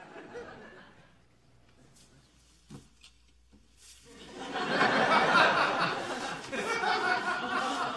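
Studio audience laughing. The laughter swells in about four seconds in and keeps going; before it there is near silence with one faint knock.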